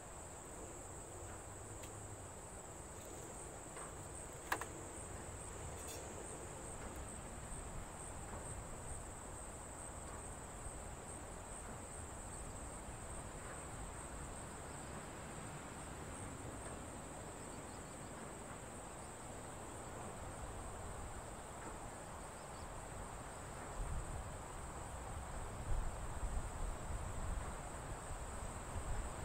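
Crickets' steady high-pitched trill. There is one sharp click about four and a half seconds in, and a few low bumps near the end.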